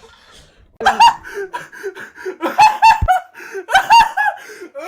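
A person's exaggerated, Joker-style cackling laugh in three bursts of swooping, rising-and-falling 'ha's, with a brief low thump about three seconds in.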